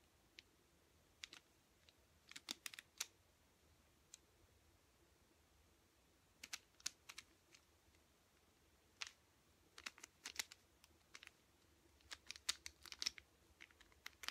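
Plastic 3x3 mirror cube being turned by hand: quick clusters of light clicks and clacks as the layers snap round, with pauses of a second or more between the bursts.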